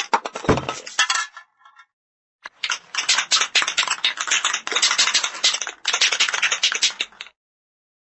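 Aerosol spray can being shaken, the mixing ball rattling inside with fast metallic clicks: a short burst in the first second, then a longer run of shaking from about two and a half seconds in, with a couple of brief breaks, stopping a little after seven seconds.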